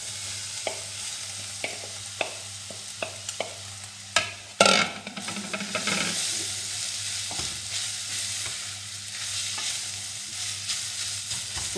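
Shredded cooked chicken breast being scraped from a bowl with a wooden spoon into a saucepan of onion frying in oil: several sharp taps of the spoon, a loud burst about four seconds in as the chicken lands in the hot oil, then steady sizzling as it is stirred.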